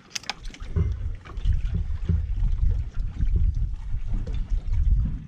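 Wind buffeting the microphone outdoors on a boat: a loud, irregular low rumble that rises and falls in gusts, with a few light clicks near the start.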